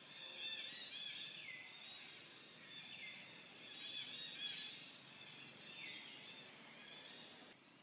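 Faint outdoor ambience full of repeated short, high chirping calls, with a falling whistle about a second and a half in, again near three seconds and near six seconds.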